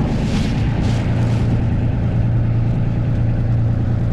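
Boat engine running steadily with a low drone that grows stronger about a second in.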